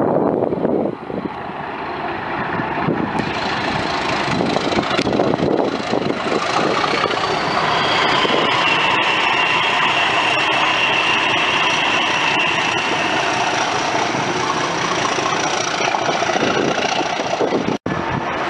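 A pair of Rail Operations Group diesel locomotives passing, their engines running and growing louder as they approach, with a steady high whistle in the middle of the pass.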